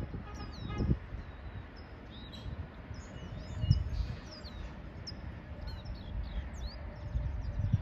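Small birds chirping and twittering over and over in short, quick notes, with low, gusty wind rumble on the microphone.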